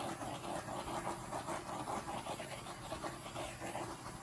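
Handheld butane torch flame hissing steadily as it is passed over wet poured acrylic paint to pop the air bubbles.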